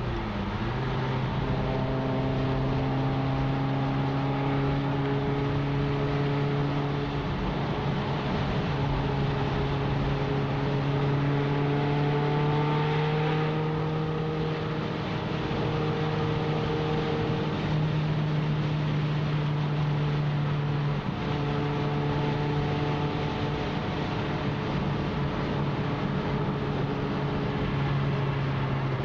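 Ferrari F355's V8 engine heard from inside the cabin while cruising, holding a fairly steady pitch that rises slightly and eases back a few times, over road and tyre noise.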